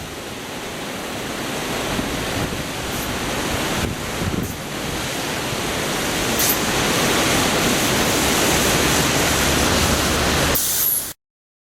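River Cree in flood, its floodwater rushing in a steady roar that grows gradually louder, then cuts off suddenly near the end.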